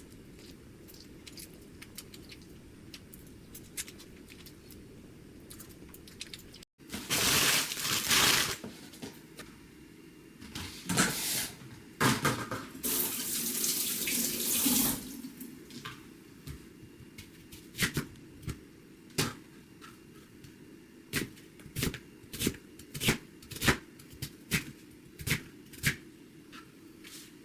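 Water from a kitchen tap running into a sink in several short bursts, followed by a series of sharp knocks and clicks, about two a second near the end.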